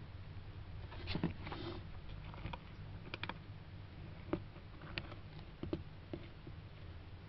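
Hermann's tortoise clambering over pebbles and soil: light, irregular clicks and scrapes of shell and claws against stone and the plastic pot, over a low steady hum.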